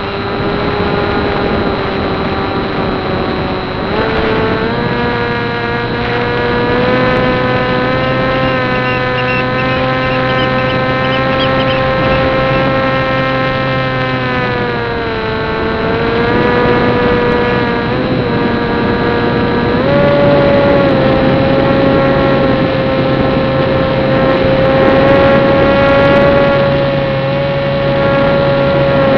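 Turnigy 2822-1450 brushless outrunner motor and 7060 slow-fly propeller on a small electric flying wing, heard from on board: a steady whining drone whose pitch steps up about four seconds in, sags a little around the middle, and steps up again about twenty seconds in as the throttle changes.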